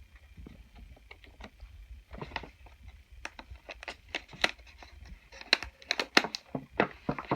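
Irregular clicks, taps and crinkles of small plastic toys and packaging being handled, sparse at first and busier and louder from about three seconds in.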